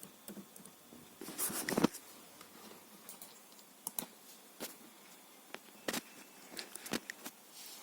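Scattered clicks and light typing on a computer keyboard and mouse, with a brief louder rustle about a second and a half in.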